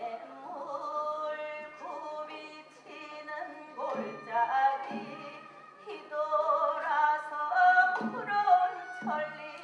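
Korean folk-style singing in a sori-geuk stage performance, a voice sliding and wavering between held notes, with low strikes coming in pairs every few seconds.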